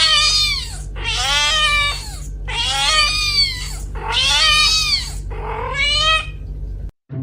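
A cat meowing loudly over and over: five long, drawn-out meows of about a second each, with a steady low hum beneath. The meowing cuts off suddenly near the end.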